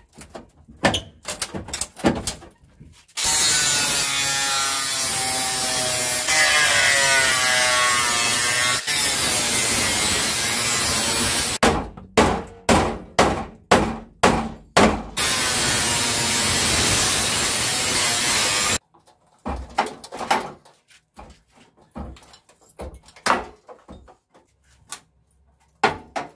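Angle grinder cutting through the sheet-steel front panel of a ZAZ Tavria, its pitch wavering under load, in two long runs with a string of short bursts between them. The second run stops suddenly. After that come scattered metal clanks and knocks as the cut panel is worked loose.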